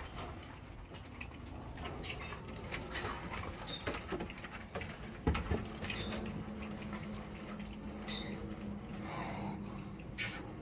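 German shepherd and Malinois puppies moving about on concrete, with scattered clicks of paws and claws and short high squeaks.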